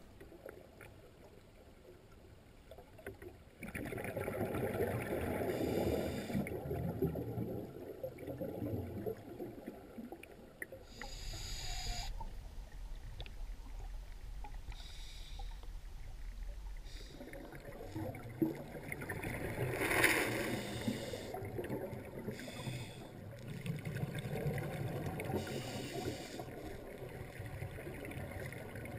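Muffled underwater sound through a dive camera's housing, with swelling, gurgling stretches of scuba exhaust bubbles. It is nearly quiet for the first few seconds, then the gurgling comes and goes every few seconds.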